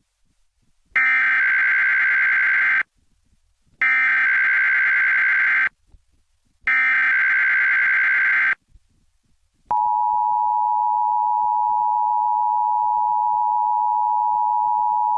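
Emergency Alert System test alert: three bursts of SAME digital header data, a warbling screech each about two seconds long with about a second of silence between them, then the two-tone EAS attention signal starting about ten seconds in and holding steady.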